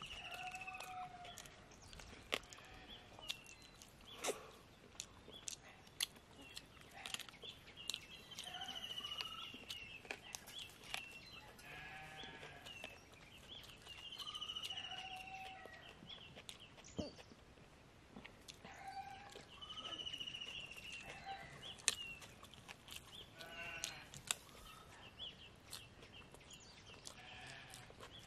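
Animal calls, each about a second long and falling slightly in pitch, repeating every few seconds, over scattered short sharp clicks.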